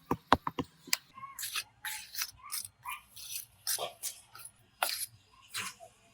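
A few sharp knocks, then a run of irregular scraping or rasping strokes: hand work on metal or moulding material in a foundry workshop.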